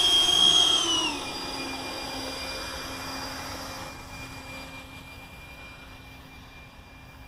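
Twin 70 mm electric ducted fans of a Dynam Me-262 model jet whining. The pitch drops about a second in, then holds steady as the sound slowly fades.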